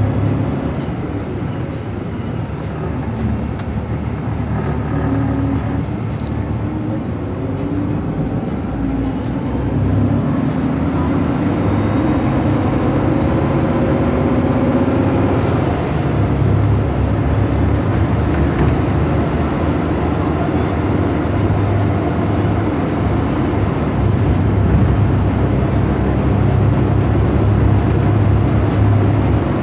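Cummins ISL9 inline-six diesel engine and driveline of a 2012 Gillig Advantage transit bus, heard from inside the passenger cabin as the bus drives, a steady low drone throughout. The engine tone climbs for several seconds around the middle as the bus pulls away and gathers speed.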